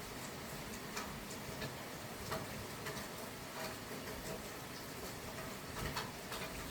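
Scattered raindrops ticking irregularly on a hard surface over a steady hiss of rain.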